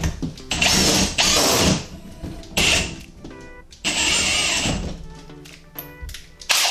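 Cordless drill with a half-inch socket driving lag bolts with washers through a steel TV wall-mount plate into the wall, in several short bursts, the longest about a second, over background music.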